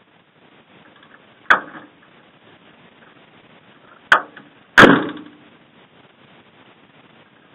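Three sharp knocks over a faint steady hiss: one about a second and a half in, then two close together at about four and five seconds in, the last the loudest.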